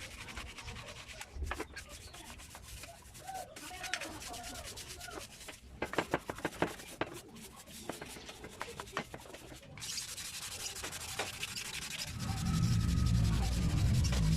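Sandpaper rubbed back and forth on a bicycle part in quick scratchy strokes, followed by a steadier rubbing hiss. For the last couple of seconds a louder low rumble joins in.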